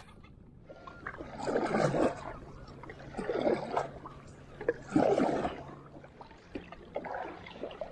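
Double-bladed kayak paddle strokes in the water: a splashy swish about every one and a half seconds, starting about a second in and growing fainter near the end.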